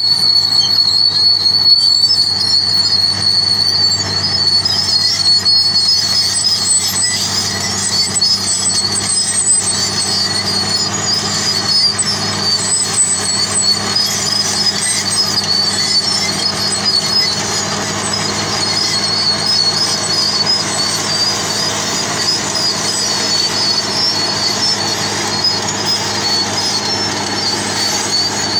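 Crawler bulldozer working under load, its diesel engine droning steadily with a high wavering metallic squeal from the steel tracks and undercarriage.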